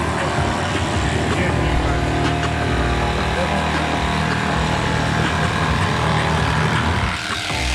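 Electric sheep-shearing handpiece running steadily as it clips through a sheep's long, matted fleece.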